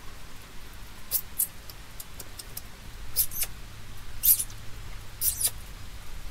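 A dog rummaging with its head in a bush: short, scattered rustles and crackles of leaves and twigs, the loudest a little past the middle.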